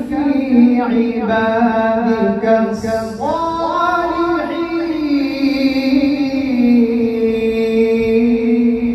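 A man reciting the Qur'an in tartil style: a melodic chanted voice that moves through short notes at first, then about three seconds in settles into one long held note that wavers slowly.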